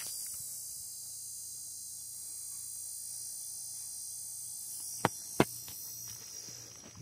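Steady high-pitched chorus of insects, with a faint low hum beneath. About five seconds in, two sharp clicks half a second apart stand out as the loudest sounds.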